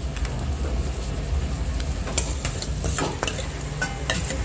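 Metal spoon scraping and clicking as creamy malai chaap is spooned onto a plastic plate, a handful of sharp scrapes and taps over a steady hiss and low rumble of the busy stall.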